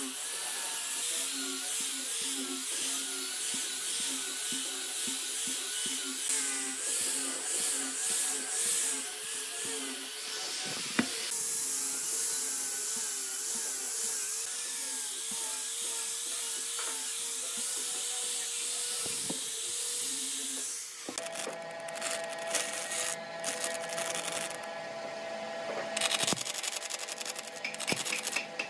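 Angle grinder with a sanding disc running against a curved wooden block, its motor whine wavering up and down as it is pressed into the wood. After about 20 seconds it gives way to a bandsaw running and cutting through a glued-up block of wood, with a rougher, rasping sound.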